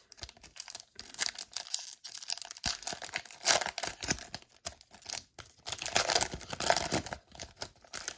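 Hockey card pack wrapper being torn open and crinkled, in irregular crackly bursts that are loudest about three and a half seconds in and again around six to seven seconds in.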